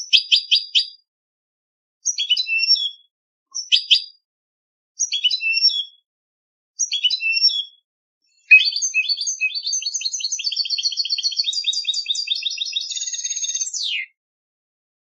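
European goldfinch singing contest-style song: five short twittering phrases separated by pauses, then a long unbroken run of rapid twitters and trills that ends in a quick falling slur near the end.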